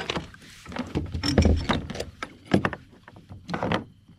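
Kayak being paddled: the paddle knocks against the hull several times at irregular intervals, with splashing water.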